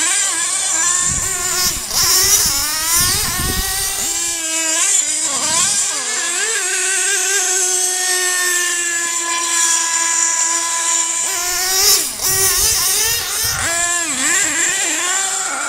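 Small nitro engine of a radio-controlled monster truck revving up and down as the truck runs, with a long stretch near the middle held at a steady high pitch.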